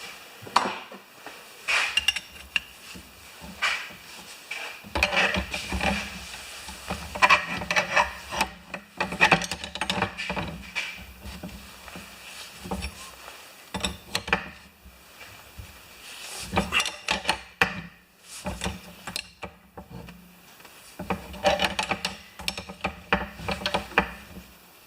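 Hand work on a pressure washer hose fitting: irregular rubbing, scraping and clinking of metal fittings and tools, with scattered short knocks.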